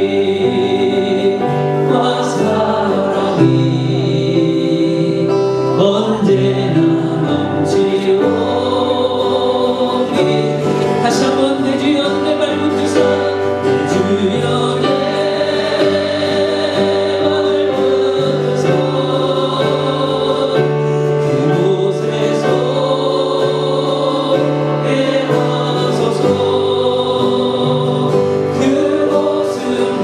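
Church praise team singing a worship song: a woman's and a man's voices into microphones over sustained instrumental accompaniment, held notes flowing continuously without a break.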